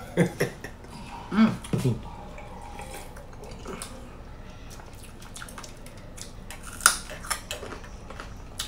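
Eating and drinking at a table, close to the microphone: sipping from a glass and small clicks and taps, with a few short murmured vocal sounds in the first two seconds and a sharper click near the end.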